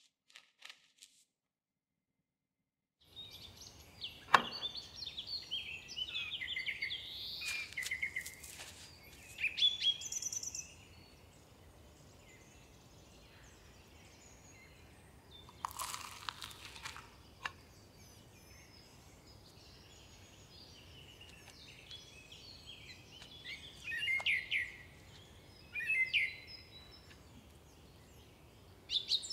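Small birds chirping in clusters over a faint steady background hiss, after a few seconds of near silence. A sharp click comes about four seconds in and a short crackle near the middle.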